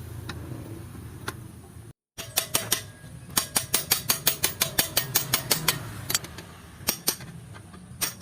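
Sharp clicks from hand-tool work on a motorcycle: a few scattered clicks, a brief dropout, then a fast, even run of about four to five clicks a second.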